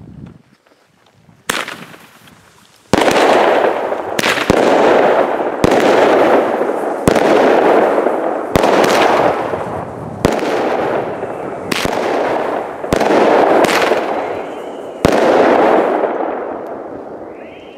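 Consumer firework cake (battery) firing. A sharp crack comes about a second and a half in. From about three seconds in, a string of about eleven bangs follows, roughly one a second, each trailed by a loud crackling rush that fades before the next. The last one dies away near the end.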